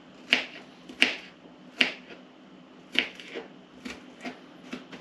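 Kitchen knife chopping onion on a plastic cutting board. There are four sharp knocks in the first three seconds, then several lighter, quicker taps.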